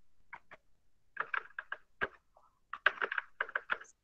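Computer keyboard typing: two short runs of key clicks with pauses between, as digits and spaces are keyed in.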